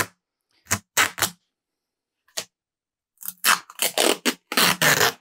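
Masking tape being peeled and unwound off a graphite fly rod blank, as a tape arbor is taken off: a series of short ripping sounds, a few at first and then a quick run of them near the end.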